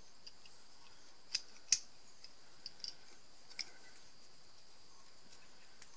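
An old metal plier-like gripping tool being worked open and shut by hand, its jaws and pivot giving a few sharp metallic clicks: two louder ones close together about a second and a half in, then a few lighter ones.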